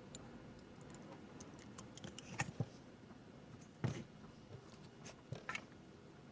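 A few faint clicks and taps of small parts being handled on a circuit board, the sharpest a little after two seconds and near four seconds in.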